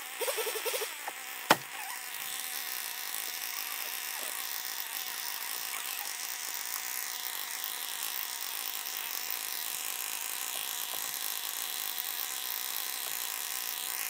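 A chainsaw engine running steadily, heard as an even buzz, after a single sharp click about a second and a half in.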